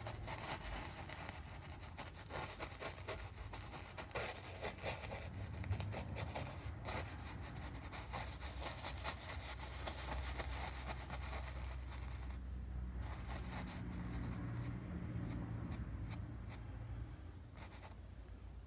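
Paintbrush stroking and dabbing paint onto the painting, a quick run of scratchy brush strokes that thins out after about twelve seconds, over a steady low hum.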